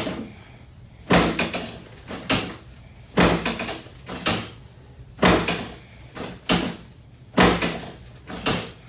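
Chiropractic drop table's pelvic section snapping down under the chiropractor's thrusts: a sharp clunk about once a second, some strokes doubled, a drop adjustment meant to move the hip and SI joint.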